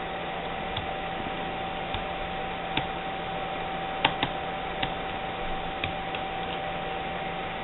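A screwdriver turning a screw out of a netbook's LCD screen mount, giving a few small irregular clicks and ticks, the loudest about four seconds in, over a steady hiss and faint hum.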